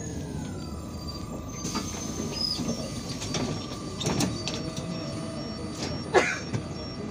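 Cabin noise of an Irisbus Citelis 12M city bus under way, its Iveco Cursor 8 diesel and drivetrain running with a steady rumble. A thin whine drops in pitch during the first second and then holds steady. A few rattles and knocks from the bus body come through, the sharpest about six seconds in.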